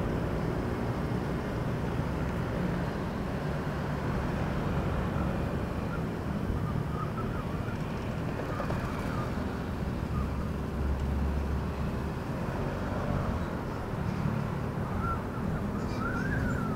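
Steady vehicle engine and road noise while travelling through city traffic.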